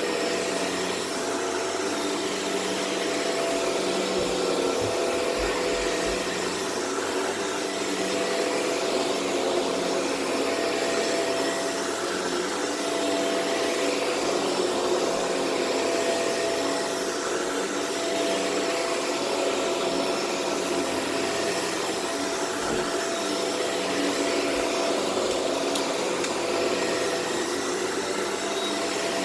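Shark Rotator Powered Lift-Away upright vacuum running steadily, its motor and brushroll pulling deodorizing powder off a carpet.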